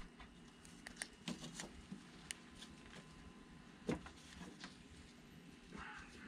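Faint scattered clicks and rustles of hands handling wiring and plastic connectors, with a slightly louder knock about four seconds in.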